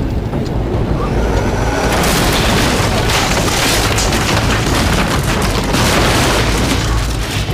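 Dramatized crash and boom sound effects: a low rumble, then from about two seconds in a long, dense rush of smashing noise with many sharp impacts, as a person is thrown and things break around him. Score music runs faintly beneath.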